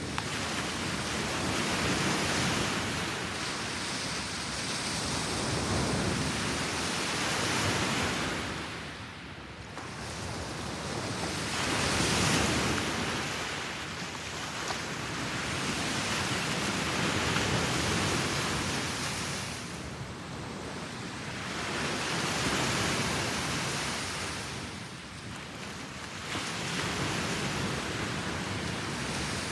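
Small sea waves breaking and washing up a pebble beach: a steady rushing hiss that swells and ebbs every few seconds as each wave comes in and draws back.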